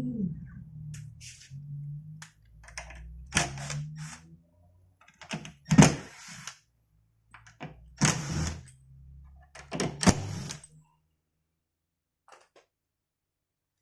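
A CNC router's steady whine drops away just after the start. About five loud knocks and thuds follow at irregular intervals over a low hum, which cuts out about eleven seconds in.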